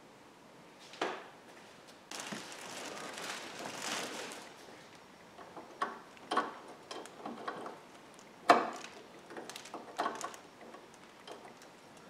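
Handling noises from hands and tools working on a metal lock bracket and its hydraulic lines: scattered sharp clicks and knocks, the loudest about eight and a half seconds in, with about two seconds of rustling shortly after the start.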